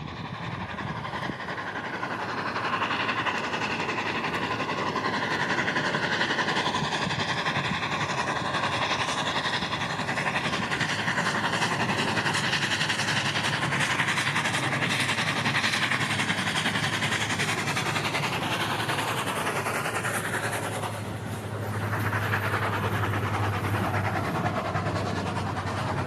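Union Pacific 844 steam locomotive and its passenger train rolling past: a steady rumble of wheels on rail. It grows a little louder as the engine draws near. Near the end a steady low hum joins in as the cars go by close.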